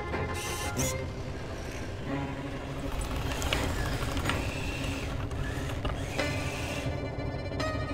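Sound effects of robot machinery: a steady low mechanical rumble with whirring, creaking metal and a few short clicks and knocks.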